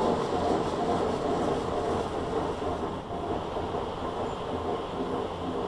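Aquatus Prime combination car wash running its touchless programme: a steady rush of spraying water and machine noise that eases a little about halfway through.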